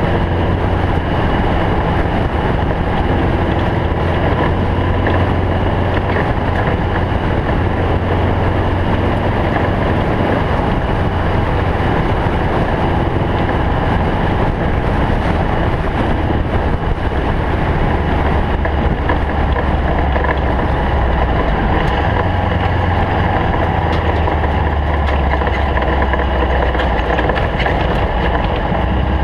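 Air-cooled Volkswagen Beetle flat-four engine running hard in an off-road race car, its low note shifting a few times, over steady wind and dirt-road noise.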